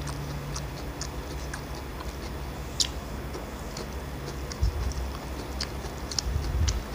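Eating sounds at close range: chewing and small wet mouth clicks, with fingers mixing rice on steel plates making light scattered ticks. A few dull thumps come in the second half.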